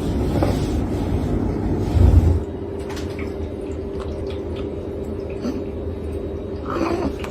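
Caracal lapping water: faint, irregular wet clicks over a steady background hum. A low rumble with a thump comes first and stops abruptly a little over two seconds in, and a short louder burst comes near the end.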